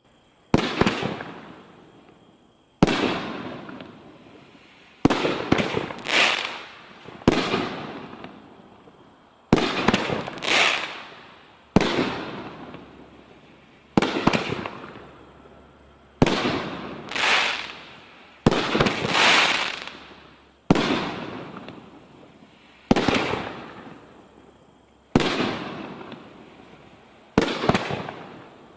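5-inch XL canister aerial shells going off one after another, one loud report about every two seconds. Some come as two bangs close together, and each trails off in a long rumbling echo.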